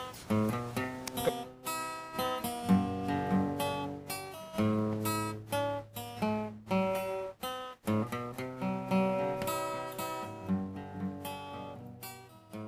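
Closing music played on acoustic guitar: plucked and strummed chords, fading toward the end.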